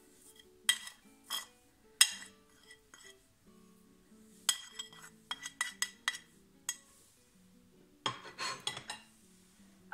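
A metal spoon scraping and tapping spices off a ceramic plate into a glass bowl: a series of sharp clinks, some single and some in quick clusters. Soft background music plays underneath.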